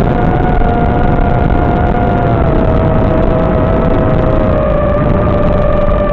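FPV drone's electric motors and propellers whining steadily, the pitch easing a little lower about halfway through as the throttle changes, over a loud low rush of air noise on the onboard microphone.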